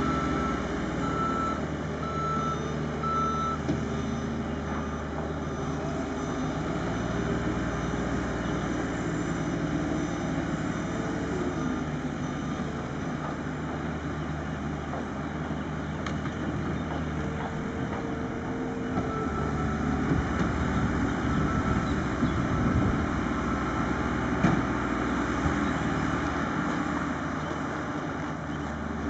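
Construction vehicle's engine running steadily, with its backup alarm beeping in an even on-off rhythm for the first few seconds and again from about two-thirds of the way through while the machine reverses.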